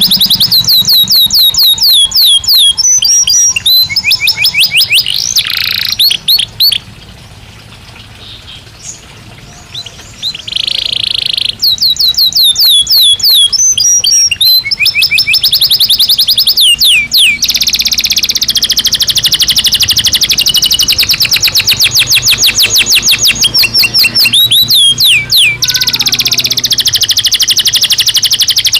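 Belgian canary singing: rapid trills of short, evenly repeated sweeping notes in runs. There is a brief lull about a quarter of the way in, then long, fast, sustained rolls through the second half.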